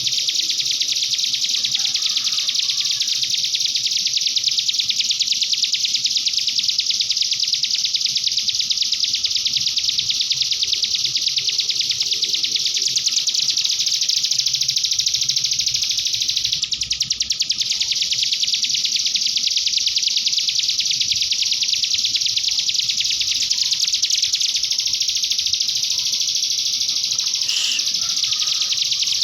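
Cigun songbird singing a fast, unbroken, canary-like song of rapid high trills and twitters, barely pausing and briefly softening about halfway through.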